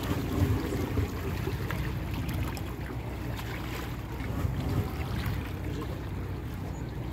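Wind and sea water: a steady low rumble, with wind buffeting the microphone.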